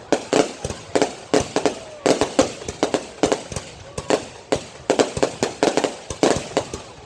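Fireworks going off in a rapid, irregular run of sharp bangs and pops, several a second, some trailing a short echo.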